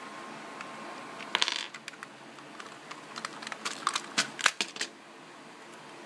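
Plastic parts of an Xbox 360 controller clicking and clattering as the controller is handled and its shell worked apart. There is a short rattle about a second and a half in, then a run of sharp clicks around four seconds in.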